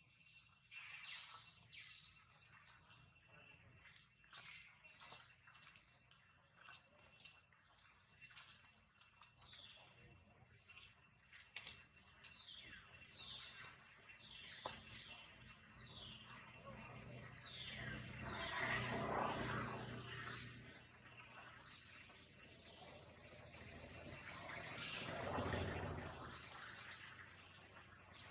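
A bird repeating a short, high chirp about once a second, a little faster in the second half. Two spells of rustling noise in the second half.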